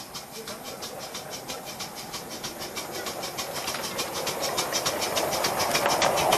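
Miniature steam locomotive, a model of LMS Coronation class no. 6220 'Coronation', running toward and past with its passenger carriages. It gives a rapid, even beat of about five to six a second that grows steadily louder as it nears.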